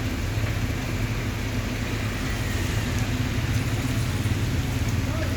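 Steady low engine rumble of road traffic, with a continuous low drone and road noise.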